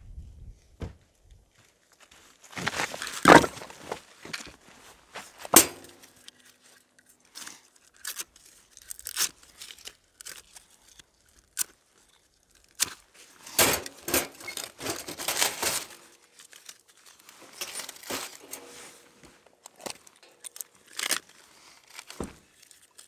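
Close handling noise: irregular crinkling and rustling with scattered sharp clicks, in louder clusters about three seconds in and again around the middle.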